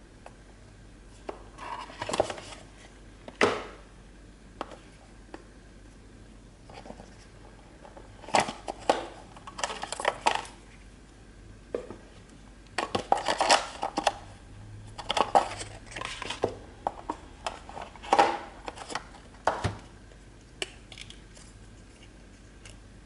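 Handling of a cardboard smartphone box and its contents: paper, cardboard and plastic rustling, tapping and clicking in irregular bursts with short pauses.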